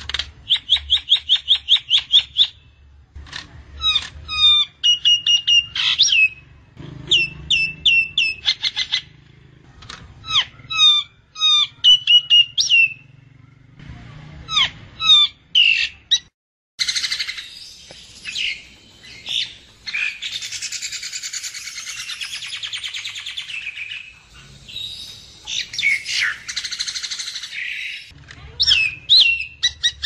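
Common myna calling. It opens with a quick run of about eight repeated notes a second, then gives a series of varied whistles and clicks, and for most of the second half a long harsh, raspy chatter.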